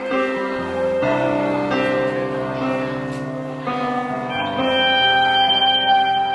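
Live band playing the slow opening of a song: sustained keyboard and guitar chords that change every second or so.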